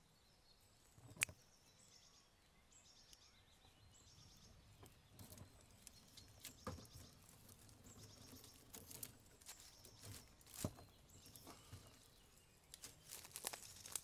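Faint birdsong, repeated high phrases, over a quiet background, broken by a few sharp clicks and rustles. The sharpest click comes about a second in, and the rustling grows busier near the end.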